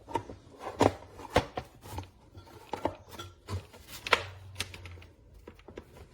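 Stainless steel folding boat anchor being handled, its flukes clicking and knocking as they are worked: a dozen or so irregular sharp clicks and knocks.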